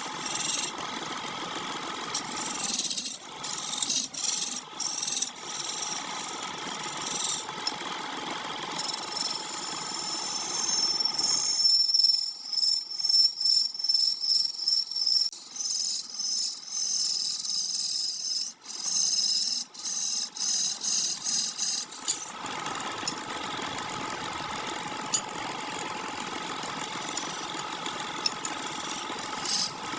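Wood lathe running, with a hand-held tool scraping and cutting against the spinning wooden workpiece. Partway through, the sound thins to a high hiss with a steady whine and a pulsing rhythm, then fills out again.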